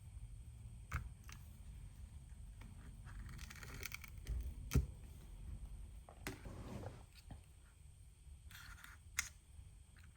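Small repair tools handled on an opened smartphone: a few sharp clicks and short scraping passes over a low hum, the loudest click a little before midway.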